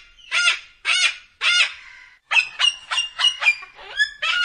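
Cockatoo giving a series of harsh calls: three spaced calls, then a quick run of about half a dozen shorter ones, then more calls near the end.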